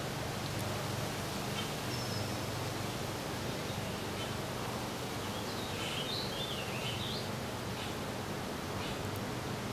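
Wind rustling cottonwood leaves as a steady hiss, with a low hum underneath. A bird gives a short high chirp about two seconds in, and a run of high, wavering calls around six to seven seconds in.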